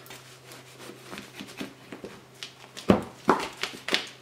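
Large kitchen knife sawing through the crisp crust of a baked filled bread loaf (Dresdner Handbrot): a run of short crackling crunches, loudest about three seconds in.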